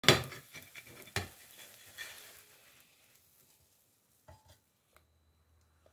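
Kitchen clatter: a loud knock of cookware at the start with a hiss fading over about three seconds, two lighter knocks about one and two seconds in, then a few faint clicks.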